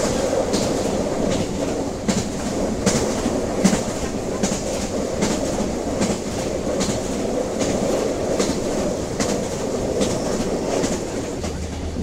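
Train running along the track: a steady rumble with the clickety-clack of wheels over rail joints, a sharp clack about once or twice a second.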